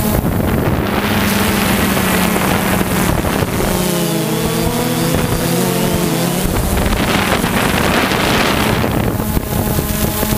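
DJI Phantom quadcopter's motors and propellers whining steadily, picked up by the camera on the drone itself, with wind rushing over the microphone. Around the middle the pitch wavers and shifts as the motors change speed, then steadies again.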